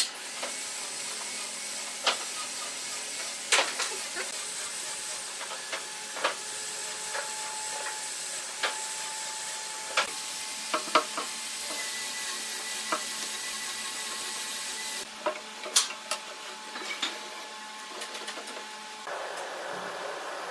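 A steady hiss broken by scattered sharp knocks and clicks as thin wooden slats are handled. About nineteen seconds in, the sound gives way to the rushing hiss of a handheld gas torch flame.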